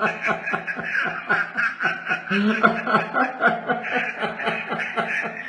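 A man laughing in a long run of quick chuckles.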